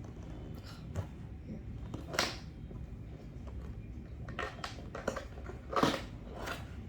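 Keyboard packaging being handled and opened: scattered rustles and knocks, the loudest about two seconds in and again near six seconds in.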